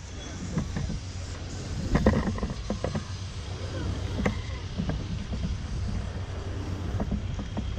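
Footsteps and knocks on a marina's floating walkway, irregular and sharpest about two seconds in, over a steady low rumble.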